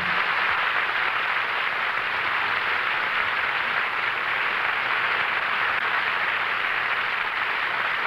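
Studio audience applauding steadily, heard on an old 1951 radio broadcast recording.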